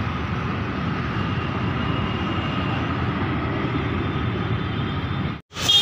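Steady road traffic noise from cars, motorbikes and e-rickshaws passing on a multi-lane road. It cuts off abruptly near the end.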